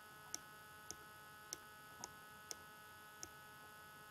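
Faint steady electrical hum with about six sharp clicks at uneven intervals.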